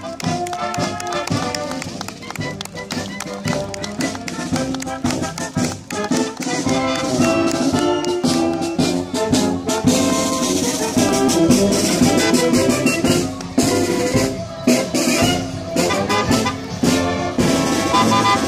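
Brass marching band playing a tune while marching, saxophones and sousaphones among the brass, over a steady beat.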